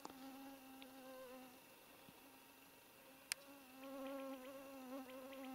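A flying insect buzzing, a steady low hum that wavers and swells louder in the second half. A single sharp click comes a little past three seconds in.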